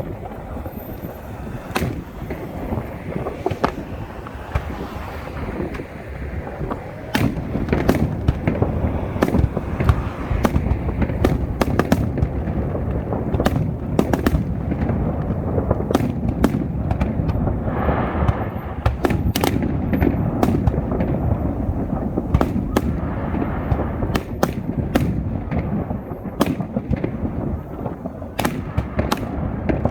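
Fireworks show: aerial shells going off in a continuous barrage, many sharp cracks and bangs at irregular spacing over a steady low rumble.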